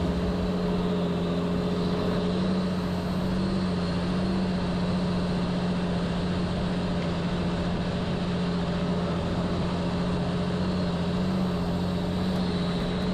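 Four-wheel drive's engine running steadily at low revs, a constant even drone.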